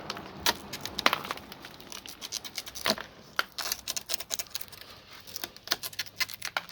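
A rubber rear-window seal being pulled and wiggled out of the car body's frame around broken glass, giving irregular sharp clicks and light jangling tinkles.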